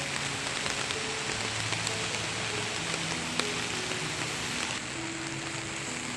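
Heavy rain falling steadily, an even hiss with scattered sharp drop hits, under soft background music with slow held notes.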